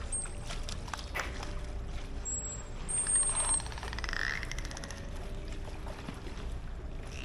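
Dolphins breathing at the water's surface: short, sharp puffs of exhaled air, loudest about three to four seconds in, over a steady low rumble.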